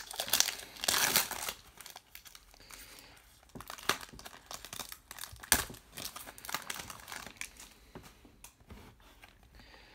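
Foil wrapper of a baseball card pack crinkling and tearing open, loudest in the first second and a half. Softer rustling and a few sharp clicks follow as the cards are slid out and handled.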